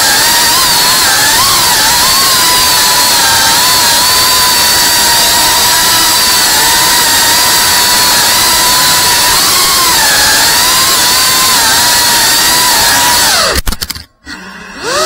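FPV quadcopter's brushless motors and propellers whining loudly over a hiss of prop wash, heard through the onboard camera, the pitch wavering as the throttle changes. Near the end the motors cut out abruptly with a click, then spool back up in a rising whine.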